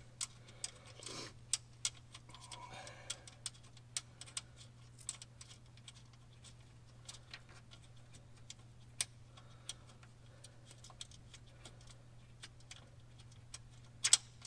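Small, irregular metallic clicks and ticks as wires and ring terminals are worked off a circuit breaker's terminal studs by hand, with a sharper pair of clicks near the end. A steady low hum sits underneath.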